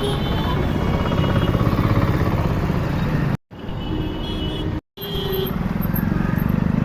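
Street traffic noise: vehicle engines running with a heavy low rumble and short horn toots, broken twice by brief silent gaps.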